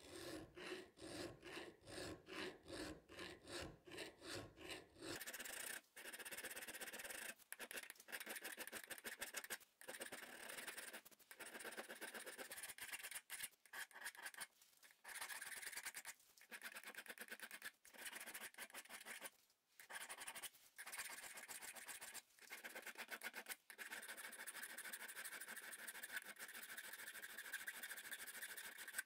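Hand file rasping across the rusty steel head of an old Finnish smith's hammer held in a vise, filing off rust and pitting. The first five seconds are short quick strokes, about three a second. After that come longer strokes of about a second and a half each, with brief pauses between them.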